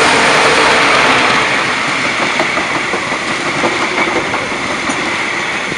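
A passenger train passing close by. The running noise of its Class 35 diesel locomotives eases about a second and a half in, leaving the coaches rolling past with their wheels clicking on the rails.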